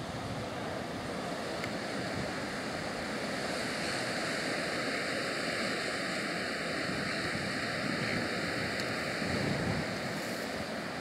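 Ocean surf washing steadily, with some wind on the microphone.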